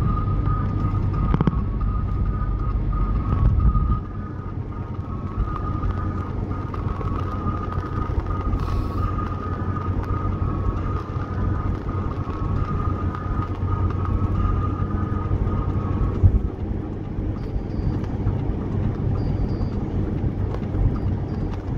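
Steady low rumble of tyres and engine heard inside a car cruising at highway speed, with a thin steady whine over it that stops about three-quarters of the way through.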